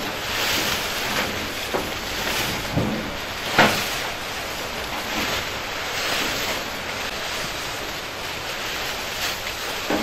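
Leafy bay laurel branches rustling as bundles of them are handled and heaved up onto a tractor trailer, with a few short knocks, the sharpest about three and a half seconds in.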